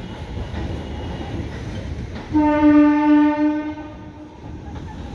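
Indian Railways MEMU electric commuter train running with a low rumble, then a single steady horn blast of about a second and a half, starting a little past two seconds in.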